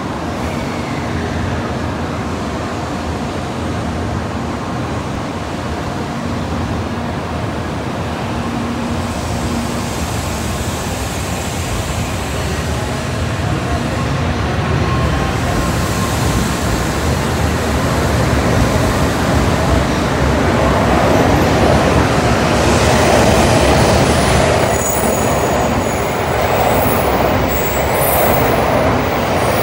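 N700 series Shinkansen train pulling out of the station, its steady running noise growing louder as it gathers speed. Short high-pitched wheel squeals come in the last few seconds.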